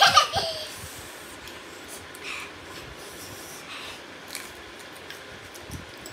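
A brief burst of laughing, exclaiming voices at the start, then quiet eating noises with a few short sniffs and sharp breaths from people eating very spicy noodles.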